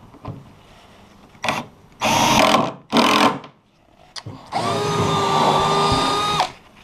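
Cordless drills driving stainless steel screws into a plywood boat lid: a brief burst, two short runs, then one longer steady run of about two seconds that rises in pitch as the motor spins up.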